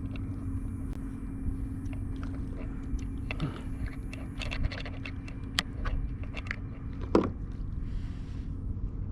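Scattered clicks, taps and scrapes of a small flounder being handled and measured on a kayak, with a short louder scrape about seven seconds in, over a steady low hum.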